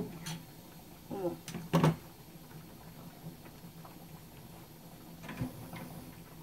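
A few sharp clicks and knocks from a frying pan and a gas stove's burner knob being handled, the loudest about two seconds in and a quick cluster near the end, over a faint steady hum. A short murmur of the voice about a second in.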